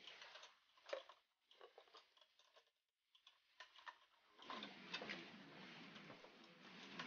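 Faint metallic clicking, crunching and scraping of a crowbar prying at the doors of steel safe deposit boxes: scattered knocks at first, then a steadier run of scraping from about halfway.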